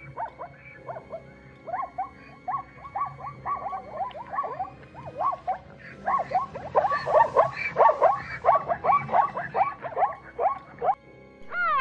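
A chorus of many animals giving short calls that fall in pitch, overlapping and quickening, and growing louder and denser about halfway through. A single drawn-out call that rises and falls begins just before the end.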